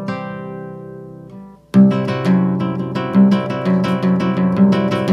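Intro music on plucked acoustic guitar. A chord rings out and fades, and then a new phrase of sharply plucked notes begins about two seconds in.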